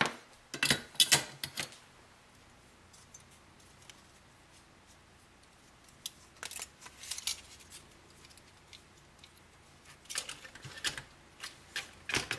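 18650 lithium-ion cells clicking and knocking against each other and into plastic cell holders as they are handled and set down: a cluster of sharp clicks at the start, a few more about six seconds in, and another cluster near the end.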